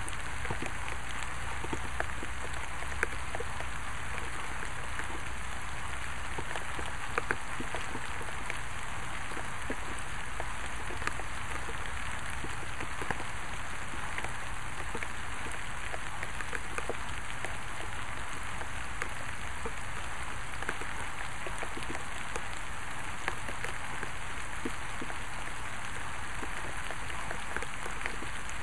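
Steady rain falling, with many individual drops pattering and ticking on nearby surfaces and now and then a louder drop standing out.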